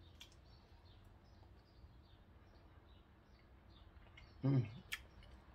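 Quiet room tone with a faint low hum. About four and a half seconds in there is a brief hummed 'mm' from a person, then a single sharp click.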